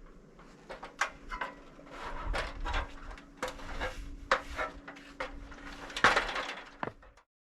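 Irregular knocks and clunks of wood being handled, the loudest about six seconds in, over a faint steady hum; the sound cuts off suddenly near the end.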